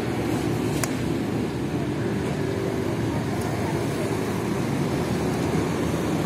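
Steady low rumble of outdoor street background noise, like distant traffic, with a faint tick about a second in.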